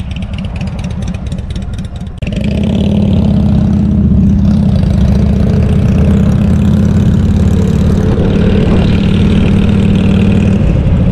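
Motorcycle engines idling, then about two seconds in the nearest engine opens up sharply as the bike pulls away, and it runs on loud and steady under way.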